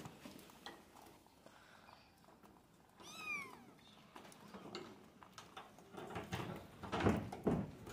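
A grey kitten meows once, a single high call that rises and falls in pitch about three seconds in. Scuffling noises follow near the end.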